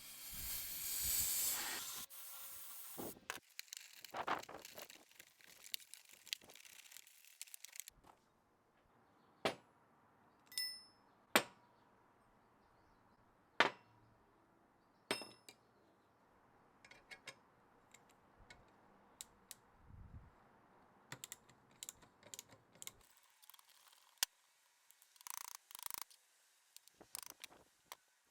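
Small metal parts and hand tools handled on a workbench: scattered sharp clinks and clicks. A louder rustling swell comes in the first couple of seconds, and a cluster of quick taps comes near the end.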